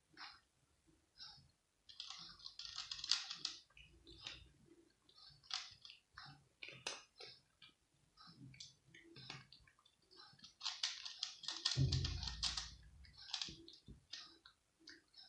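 A cat crunching dry kibble: irregular small crunches and clicks, coming thick in two bouts of steady chewing. A low dull bump sounds about twelve seconds in.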